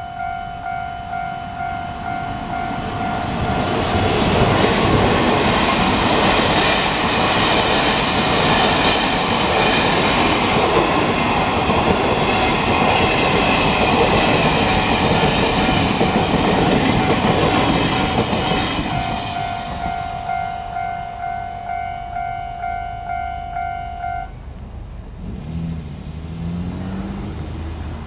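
Level crossing warning bell ringing a repeating two-tone ding, about two strikes a second. A Taiwan Railways Chu-Kuang Express passenger train then passes over the crossing, its wheel and carriage noise covering the bell for about fifteen seconds. The bell is heard again as the train clears, stops a few seconds later, and a car engine revs low as the car drives off near the end.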